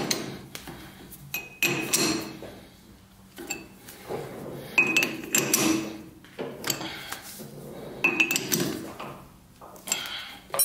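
Metal clinks and clunks of a three-jaw lathe chuck being tightened on a steel bar with a chuck key, in several separate bursts, some leaving a short high ring.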